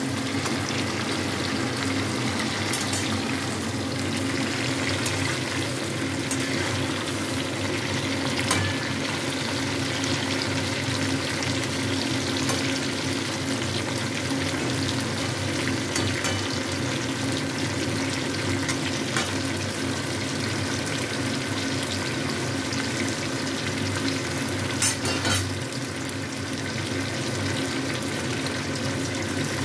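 Raw green mango chunks sizzling as they fry in mustard oil in a metal kadai. A metal spatula stirs them, with a sharper knock against the pan now and then.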